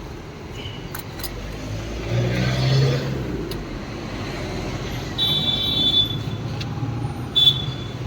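Street traffic: motor vehicles running and passing close by, swelling about two seconds in. A high-pitched tone sounds for about a second midway, and briefly again near the end.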